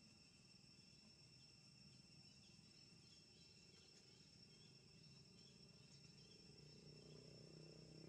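Near silence, with a faint, steady, high-pitched insect trill and a few faint short chirps in the middle.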